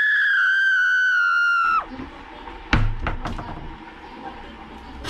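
A loud, high-pitched held tone lasting about two seconds, sliding slightly down and cutting off sharply. It is followed by a few clicks and knocks as a kitchen cabinet door is opened and a metal pot is taken out.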